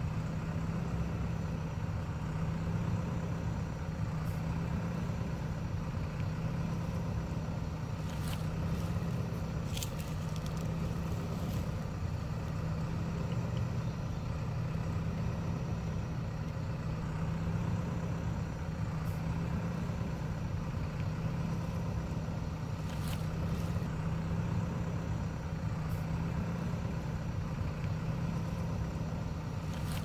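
JCB backhoe loader's diesel engine idling steadily while the machine stands still, with a few sharp clicks about eight to twelve seconds in and again near twenty-three seconds.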